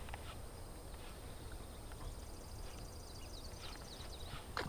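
Faint outdoor ambience: a low wind rumble on the microphone, with faint bird chirps about halfway through and a sharp click near the end.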